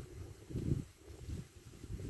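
Wind buffeting the microphone: an uneven, gusty low rumble that swells strongly about half a second in.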